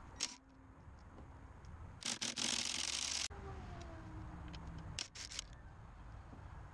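Cordless drill with a socket extension spinning in short bursts, the longest about a second halfway through, as it backs out the bolts that hold a pool pump motor to the volute. Quick metal clicks from the socket and bolts about five seconds in.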